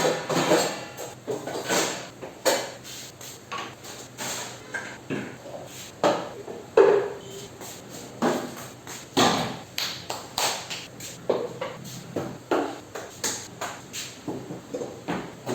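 Kitchen containers and utensils clattering as they are handled, taken out and set down: irregular knocks and clinks, with one louder ringing clink about seven seconds in.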